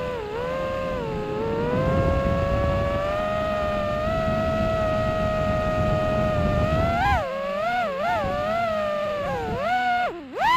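Racing-drone (FPV quadcopter) electric motors and propellers whining in flight, picked up by its onboard camera. The tone holds fairly steady and creeps slowly upward, then swoops quickly up and down several times from about seven seconds in as the throttle changes. A rushing wind noise sits underneath and mostly drops away when the swoops begin.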